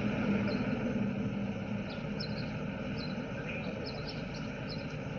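Steady low rumble of street traffic, with faint light ticks here and there.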